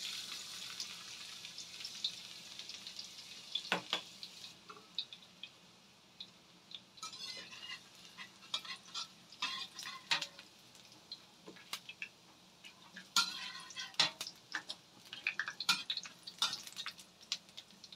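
Minced garlic sizzling as it drops into hot oil in a stainless steel wok; the hiss is strongest at first and dies down over the first few seconds. A metal spatula then scrapes and taps against the wok again and again as the garlic is stir-fried, with the oil still sizzling faintly underneath.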